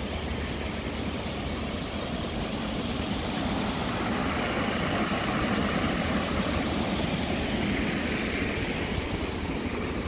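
Water running down a stone water wall into a shallow pool: a steady rushing hiss that swells a little toward the middle.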